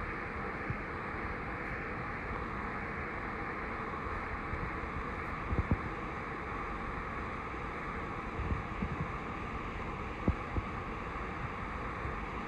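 Steady rush of flowing river water, with a few soft low thumps about halfway through and near the end.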